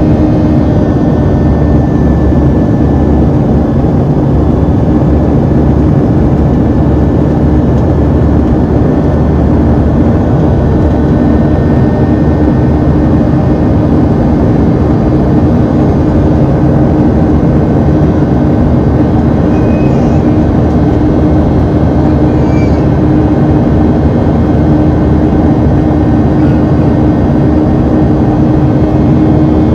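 Boeing 737-700's CFM56-7B jet engines heard from inside the passenger cabin during the climb: a loud, steady engine drone with a strong low hum over rushing air noise.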